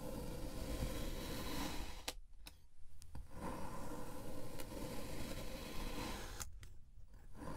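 Knife slicing down through a block of layered kinetic sand, a grainy scraping crunch. There are two slow cuts, each ending in a click, and a third begins near the end.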